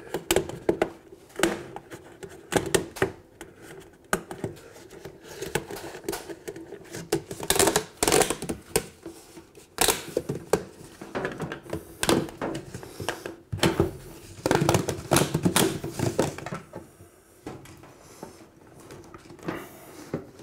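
Flexible ribbed ducting crinkling, scraping and clicking in irregular bursts as it is worked by hand over a range hood's round steel duct collar, with a faint steady hum beneath.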